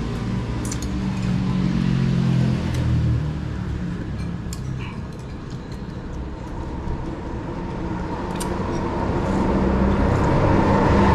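Road traffic: a motor vehicle's engine running, with a rumble that swells and gets louder near the end as a vehicle passes close. A few light clicks of a metal spoon against a ceramic bowl.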